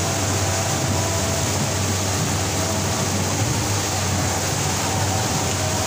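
Speedboat engines running steadily underway: a constant low drone mixed with rushing water and wind noise, heard from inside the covered passenger cabin.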